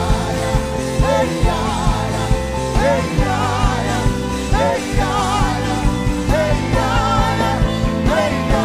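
Live worship band music: sustained keyboard-like chords and a steady beat, with a voice singing a wavering, ornamented melodic line over them.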